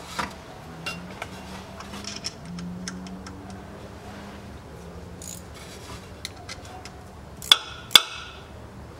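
Small metal clicks and clinks of a hand tool on the Haldex coupling's filter cover fastenings as they are snugged up, scattered through, with two sharper clinks about half a second apart near the end. A faint low hum runs underneath.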